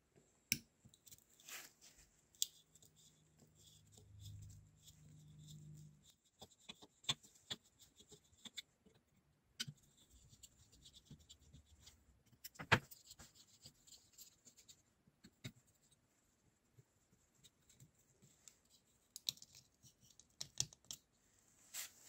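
Screwdriver backing out small screws from an old tweeter's faceplate: scattered light clicks and scrapes of metal on metal and plastic, with one sharper knock about halfway through. A brief low hum comes in about four seconds in and stops about two seconds later.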